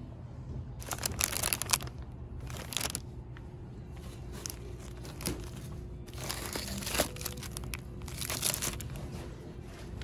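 Plastic packaging crinkling as it is handled, in four bursts, the loudest about a second in, over a steady low hum.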